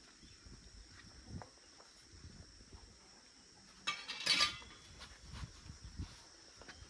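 A short rustle of a bundle of cut broom grass being handled and set down on a veranda, about four seconds in, over a faint steady high insect drone.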